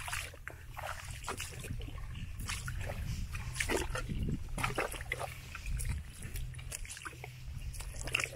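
Rubber boots squelching and splashing step by step through soft, wet mud and shallow puddles, at an irregular walking pace, over a steady low rumble.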